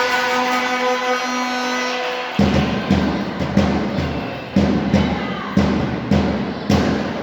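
A horn sounds one steady held note for about two seconds. A big bass drum then takes over, struck about eight times in an uneven, partly paired beat.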